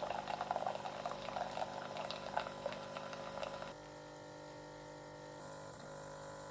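Water boiling and bubbling as it is heated for coffee, over a steady hum. The bubbling stops a little past halfway, leaving the steady hum.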